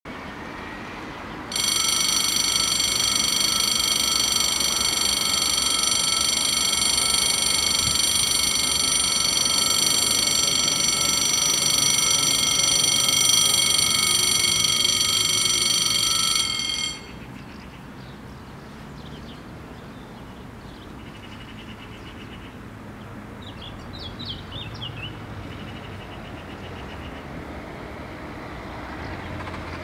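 Level-crossing warning bells, electronic, sound a steady ringing tone for about fifteen seconds while the barriers come down, warning of an approaching train. They stop abruptly about two-thirds of the way through.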